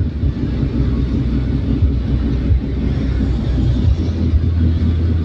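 A car driving at speed on a rain-wet road: a steady low rumble of engine and tyres with an even hiss of spray over it.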